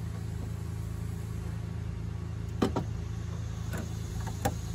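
Steady low hum of an idling engine, with a few sharp clicks about two and a half and four and a half seconds in from work on the washer fluid reservoir and its zip ties.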